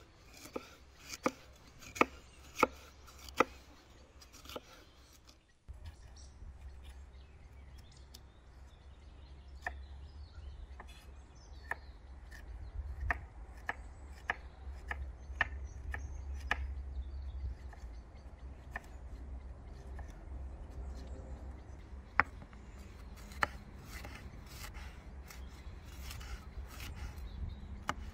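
Kitchen knife slicing red peppers on a wooden cutting board: a series of sharp knocks as the blade strikes the board, about one or two a second, in runs with pauses, over a low steady rumble.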